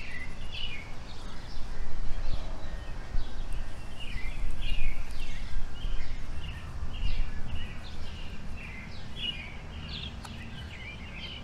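Small birds chirping, with repeated short notes throughout, over a low, uneven rumble that is stronger for the first eight seconds or so and then eases off.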